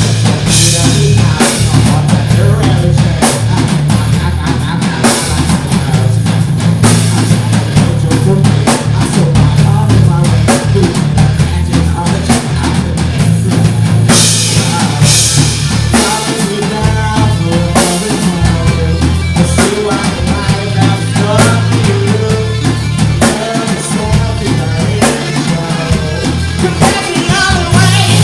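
Live rock band playing loud, with a drum kit hammering out a busy beat of kick, snare and rimshots over a sustained low bass line.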